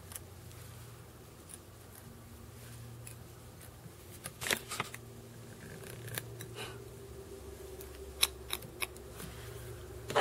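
Fly-tying scissors and tools giving scattered light clicks and snips as the tying thread is tied off and cut at the vise, over a faint steady hum.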